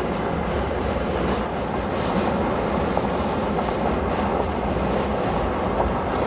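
Steady rushing road and wind noise from a moving vehicle, with a low rumble underneath.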